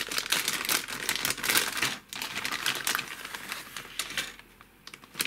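Clear plastic kit bag crinkling and rustling as a sprue of plastic model parts is pulled out of it. The crinkling dies down about four seconds in.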